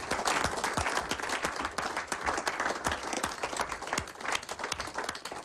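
A small group of people applauding, many hands clapping together and thinning out near the end.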